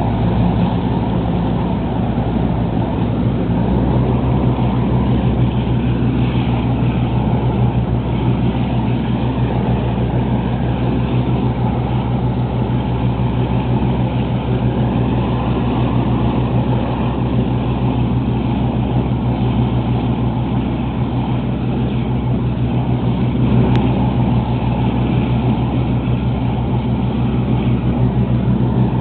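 Lobster boat's engine running steadily under way, a constant low drone, with water rushing past the hull from the bow wave.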